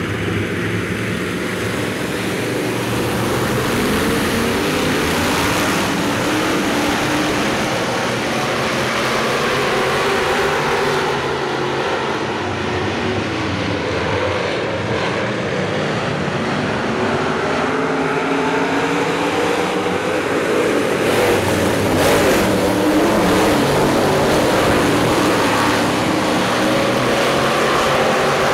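A field of hobby stock race cars running hard around a dirt oval, their engines rising and falling in pitch as they lap together, starting as the flag drops. The sound grows a little louder about three-quarters of the way through.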